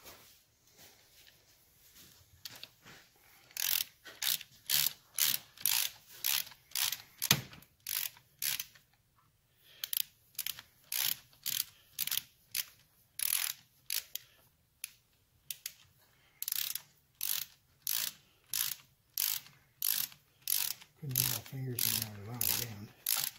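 Hand ratchet clicking in a steady rhythm, about two clicks a second, as it is swung back and forth tightening the screws on a Triumph four-speed gearbox's inner cover. The clicking starts a few seconds in and pauses briefly about halfway through.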